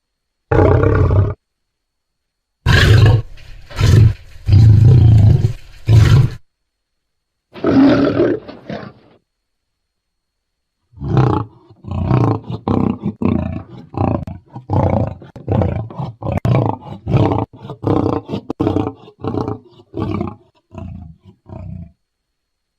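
Lion roars used as edited sound effects: a short roar, then a longer stretch of several roars, another roar, and a long series of short grunting roars about two a second that grow weaker toward the end. The clips are separated by clean digital silence.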